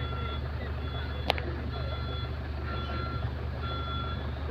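Excavator's travel alarm beeping about once a second over the steady low running of its diesel engine, with one sharp click about a second in.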